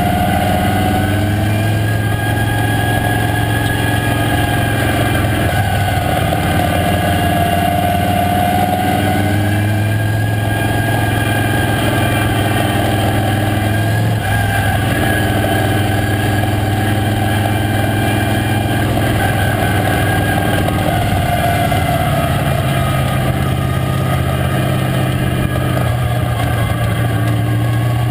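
Late model stock car's V8 racing engine running hard, heard from inside the cockpit, its pitch slowly rising and falling as the car laps the track.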